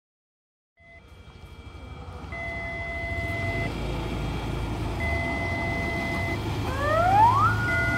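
After a second of silence, the low rumble of a track inspection vehicle approaching on the rails grows louder, while an electronic warning beep sounds in long pulses, about a second on and a second off. Near the end a siren winds up in pitch and settles into a steady wail.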